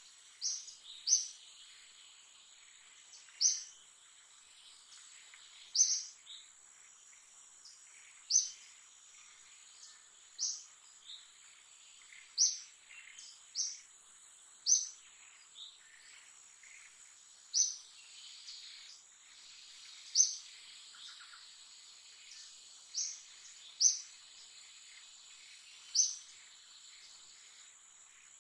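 Forest ambience: a bird repeats a short, sharp, high call roughly every two seconds over a steady high-pitched insect drone.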